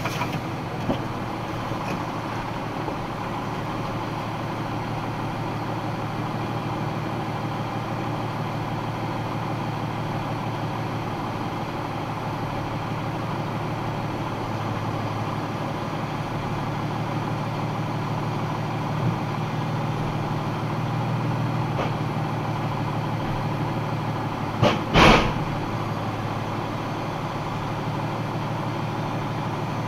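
Box truck's engine idling steadily, heard inside the cab. Near the end come two sharp knocks in quick succession, the second louder.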